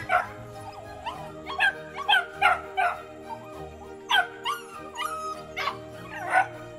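Helmeted guineafowl calling: a dozen or so short, sharp cries at irregular intervals, with a gap in the middle. Background music with held notes plays underneath.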